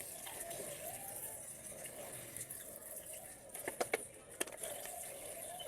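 A few light clicks of small metal transmission valve-body parts being handled, a cluster a little past the middle and one more shortly after, over a faint steady background.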